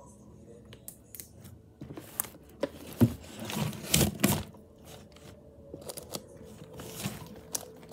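Handling noise as things are moved about on a table: scattered clicks and rustling, with a sharp knock about three seconds in and a busier stretch of rustling just after.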